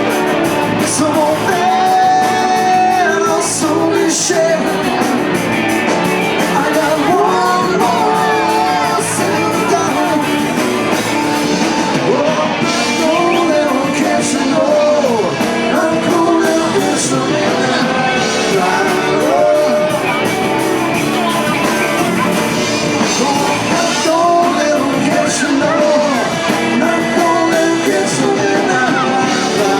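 Live rock band playing a song with a lead singer, drums and cymbals marking the beat.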